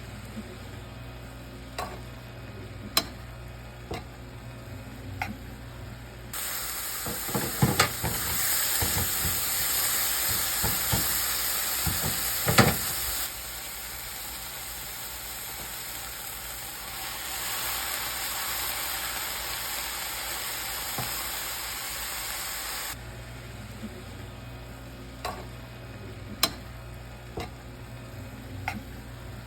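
Beet greens frying in a pan: a loud, steady sizzle fills the middle of the stretch, with utensil clatter and knocks in its first half. Before and after it the sizzle is much quieter, with occasional taps of a utensil.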